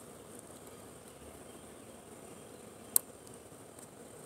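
Windshield wiper blade being pried at with a small tool to free its rubber insert from the groove, giving one sharp click about three seconds in. Under it, a faint steady high buzz of insects.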